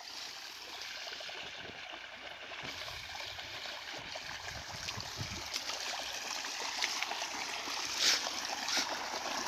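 Water in a small field ditch flowing and trickling steadily through a mesh net trap, with a few short scuffs near the end.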